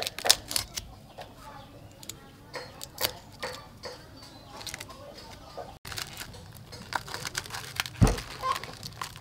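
Tough husk sheaths being torn and peeled off a fresh bamboo shoot by hand, in crisp crackling tears and snaps at irregular intervals, with a dull thump near the end.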